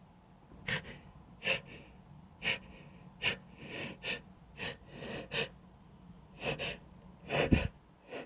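A person's short, sharp gasping in-breaths, about a dozen in quick succession, the loudest near the end: the catching breaths of a sneeze building up that has not yet come.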